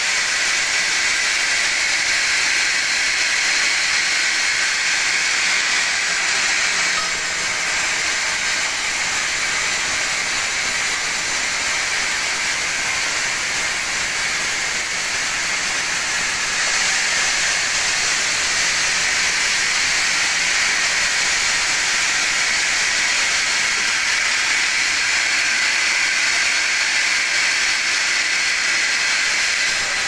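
Band sawmill blade cutting lengthwise through a teak beam: a steady, high-pitched hiss of the running band in the wood. Its tone shifts slightly twice.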